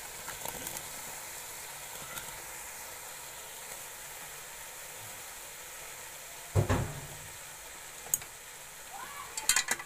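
Oil and spice masala sizzling in a cooking pot under a load of freshly added turnip and potato chunks, a steady hiss. A single heavy thump comes about six and a half seconds in, and a few clinks near the end.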